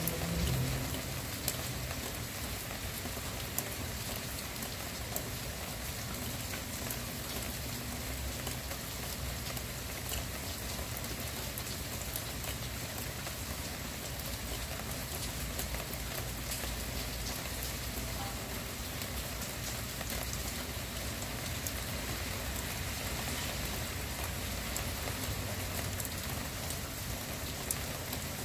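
Steady gentle rain falling, with scattered single drops ticking through it. A low rumble fades out about a second in.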